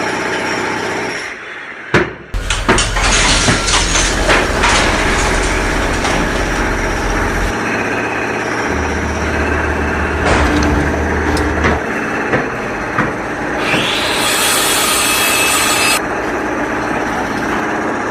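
Construction machinery and tools running: a heavy engine rumble with knocks and sawing-like noise, and a loud hiss near the end.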